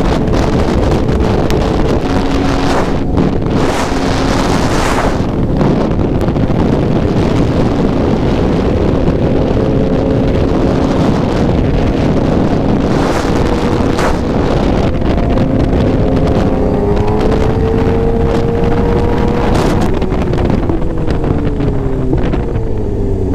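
Sport motorcycle engine running at speed under heavy wind noise on the microphone. The engine note climbs about two-thirds of the way through, then drops away near the end.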